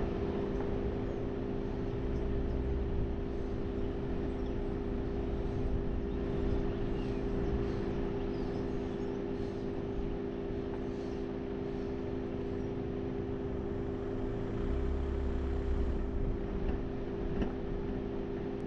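An engine running steadily, a constant low drone over an even rushing noise, with a deeper rumble swelling twice.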